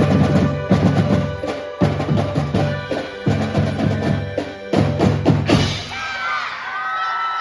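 Marching band playing: a rapid drum cadence on bass and snare drums under held melodic notes, which cuts off suddenly about five and a half seconds in. Crowd voices and cheering follow.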